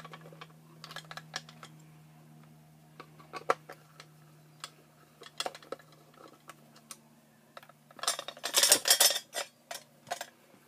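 Clicks, taps and knocks of a plastic floodlight housing and its parts being handled and taken apart by hand, with a louder spell of rattling and scraping about eight seconds in. A faint steady low hum runs underneath.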